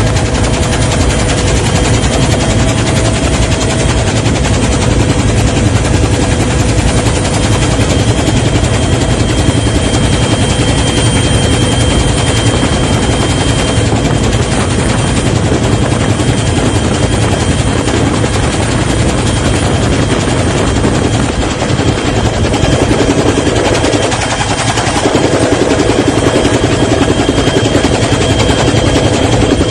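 Loud, steady machine noise with a fast chopping pulse under a steady whine.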